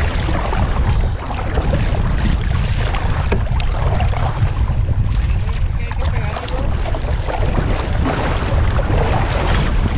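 Strong wind buffeting the microphone aboard a small fishing boat: a steady, loud low rumble with a rushing hiss of wind and water.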